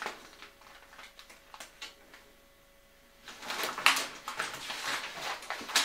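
Paper rustling as a Lego instruction booklet is opened and leafed through, starting about three seconds in after a few faint ticks of handling, with a sharp crackle near the end.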